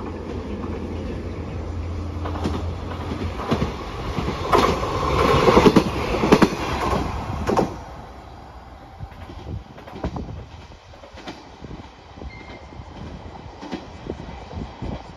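KiHa 47 diesel railcar passing close by: its engine's low steady drone builds, the wheels clatter over the track with loud sharp clacks when it is nearest, about five to seven seconds in, and the sound then fades as it runs away with a few more clacks.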